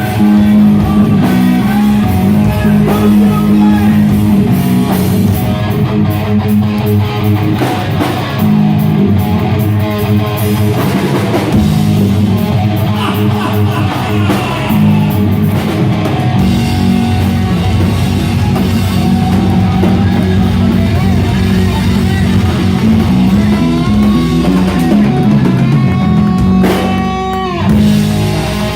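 Live rock band playing, with electric guitar and a drum kit, loud and continuous.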